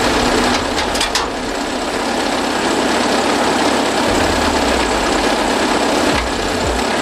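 Bobcat skid-steer loader's engine idling steadily.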